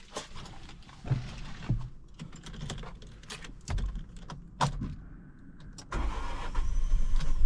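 A few clicks and knocks, then about six seconds in the MG ZS's engine cranks and fires, settling into a steady low rumble with a faint high whine. This is the first start of the salvage car that would not run before.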